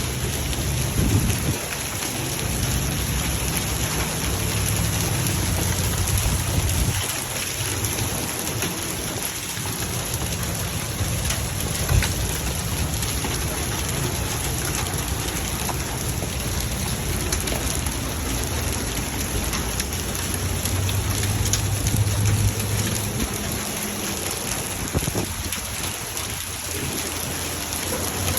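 Hailstorm: a dense, steady clatter of hailstones and rain striking surfaces, with sharper single impacts standing out now and then, the loudest about twelve seconds in.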